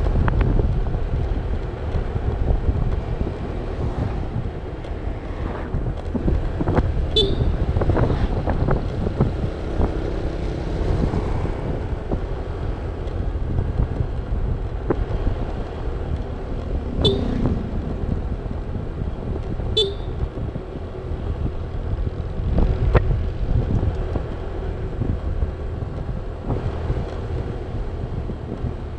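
Honda scooter cruising at about 45–50 km/h: steady engine and road rumble with wind buffeting the microphone. Three short horn beeps cut through, one about a quarter of the way in and two close together past the middle.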